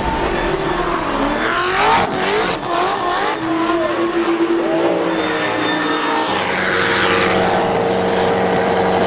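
BMW drift car engine revving up and down with tyre squeal as the rear tyres spin, then held at steady high revs for the last few seconds.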